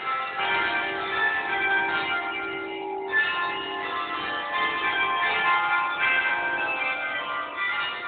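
Church bells ringing, several bells at once, their tones overlapping in a continuous peal.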